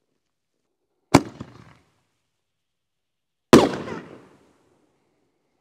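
Camo Blast consumer canister shell fired from a mortar tube: a sharp launch bang about a second in, then, some two and a half seconds later, the slightly louder bang of the shell breaking high up, trailing off in a rumbling echo.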